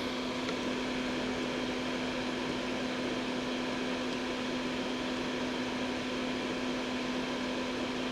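Steady machine hum of a running motor or fan, with an even hiss and one constant low tone.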